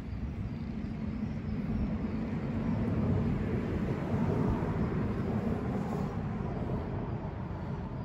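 Low rumbling noise of a passing vehicle. It swells to its loudest about halfway through and fades towards the end.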